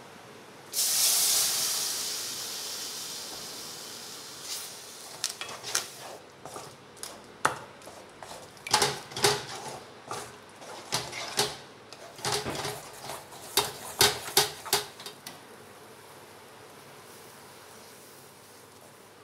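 Milk poured onto hot ghee-roasted flour and sugar in a kadai, hissing loudly at once, the hiss fading over a few seconds. Then a spatula stirring the thickening mixture, scraping and knocking against the pan in quick irregular strokes for about ten seconds.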